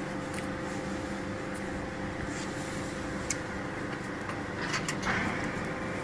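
Vertical baler humming steadily while its chamber door is unlatched, with a few light clicks from the latch and a rougher scraping noise about five seconds in as the door swings open.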